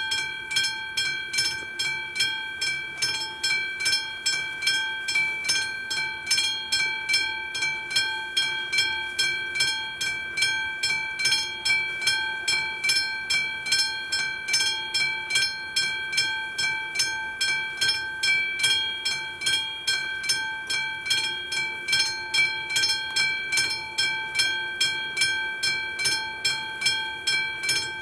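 Railway level-crossing warning bell coming on suddenly and ringing steadily at about two strikes a second, the signal that the crossing has activated for an approaching train.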